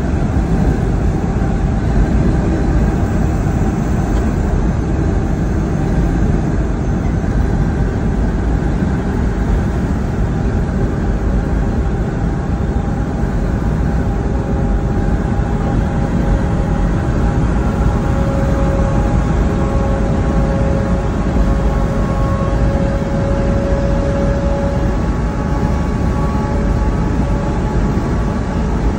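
Steady drone of a semi-truck's diesel engine and tyres at highway speed, heard from inside the cab: a low, even rumble with a faint steady hum rising out of it now and then.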